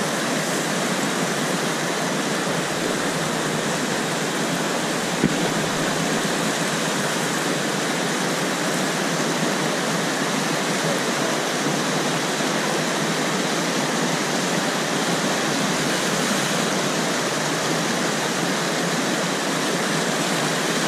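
River whitewater rushing steadily as a kayak runs a rapid, with a single sharp knock about five seconds in.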